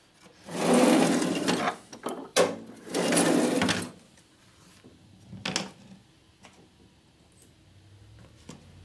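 Metal tools rattling in a steel workbench drawer in two bursts of about a second each, with sharp clicks of tools being picked up and set down: a search for a larger hand reamer.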